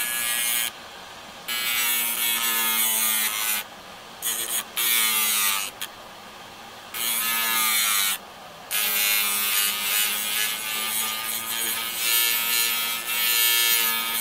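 Hard drive spindle motor spinning its platter as a makeshift grinder, with a steel chisel blank pressed against it. The grinding comes in spells of hissing scraping, each a second to several seconds long, broken by short quieter gaps as the steel is lifted. The motor's steady hum runs underneath.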